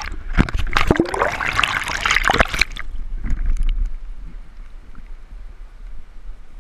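River water splashing and churning close by, loud and choppy for about the first three seconds, then easing to a quieter, steady rush of flowing water.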